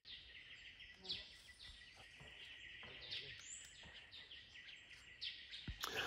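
Faint jungle ambience: short high bird calls, each sweeping down in pitch, repeating irregularly throughout, over a steady thin high tone.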